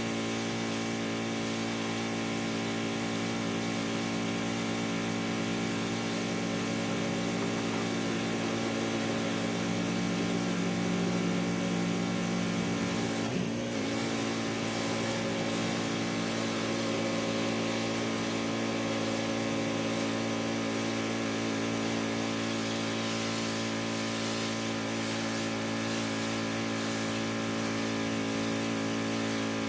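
Pressure washer running steadily under load, its motor's drone with a hiss of spray over it, cleaning mold off house trim; it breaks off briefly about halfway through.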